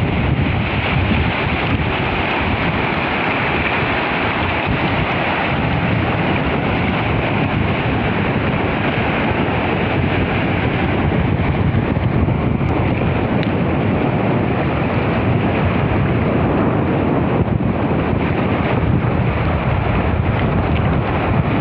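Steady loud rushing of wind on the microphone over moving sea water, unbroken and without distinct events.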